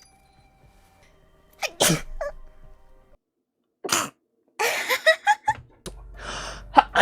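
Several separate human sneezes cut one after another: one about two seconds in, another about four seconds in, and a third about five seconds in, followed by a few short vocal sounds. A breathy intake and the start of another sneeze come near the end.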